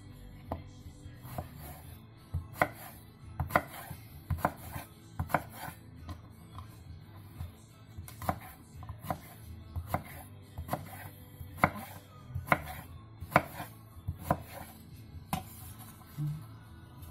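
Kitchen knife chopping eggplant into small pieces on a wooden cutting board, the blade knocking the board in uneven strokes about once or twice a second.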